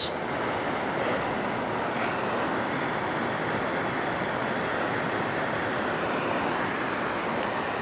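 Small handheld torch burning with a steady hiss, its flame heating heat-shrink butt connectors on wiring to shrink and seal them. It starts abruptly and holds one level throughout.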